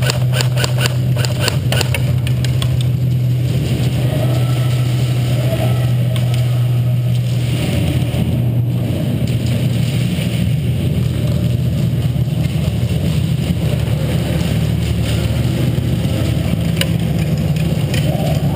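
Airsoft gunfire: a quick string of sharp snaps, about four a second, during the first three seconds, over a steady low hum that runs throughout.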